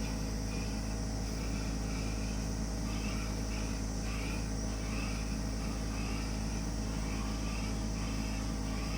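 Sharp air conditioner outdoor unit running with a steady, noisy hum of several low tones. It has made this noise since it was bought, which the owner suspects was an initial defect.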